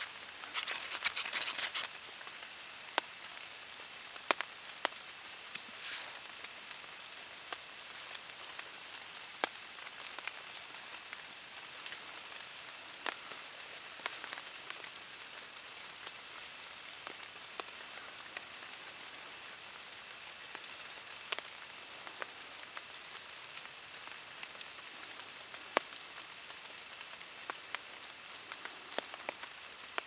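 Steady rain with scattered louder drips. In the first two seconds a knife scrapes a ferro rod in a quick run of rasping strokes, throwing sparks.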